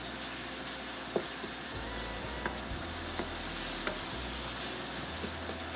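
Onion, ginger and garlic paste sizzling in hot mustard oil in a wok as it fries down to brown, stirred and scraped with a wooden spatula, with a few light clicks of the spatula against the pan.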